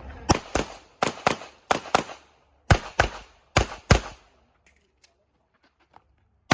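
Handgun fired in quick pairs: five double taps, the two shots of each pair about a third of a second apart, then a pause of about two seconds before one more shot right at the end. Two shots per target is the usual IPSC pattern.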